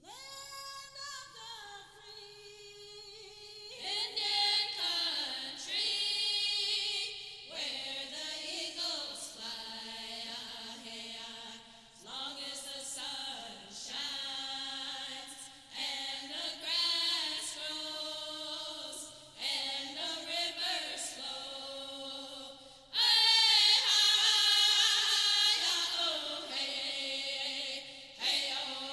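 A small group of women and men singing together unaccompanied, several voices in harmony, in phrases with short breaths between them. The voices come in much louder about three-quarters of the way through.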